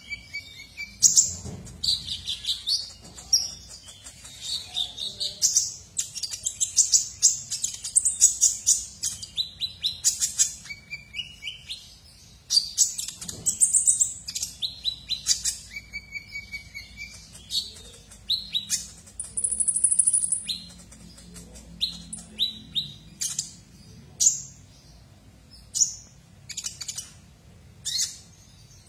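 Male purple-throated sunbird (kolibri ninja) singing: rapid bursts of high-pitched chirps and trills, one after another, with a held high whistle about twenty seconds in.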